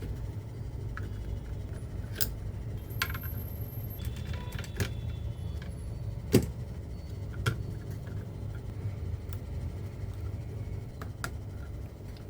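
Scattered light clicks and taps of small parts and tools being handled on a workbench, the sharpest about six seconds in, over a steady low hum.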